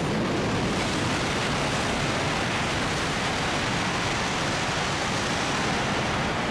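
E5 series Shinkansen bullet train passing through a station at full speed, about 320 km/h: a steady rushing noise that holds an even level throughout.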